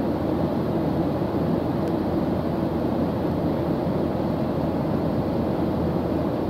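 Steady low rumble of a jet airliner's cabin in cruise flight, engine and airflow noise heard from a seat over the wing.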